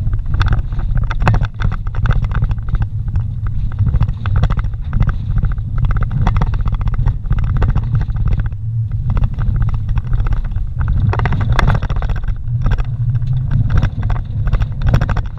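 Vehicle driving over a rough dirt track, heard from inside the cabin: a steady engine and tyre rumble with frequent knocks and rattles from the bumps.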